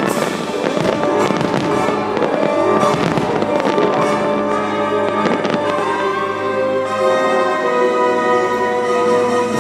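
Fireworks bursting several times over orchestral show music.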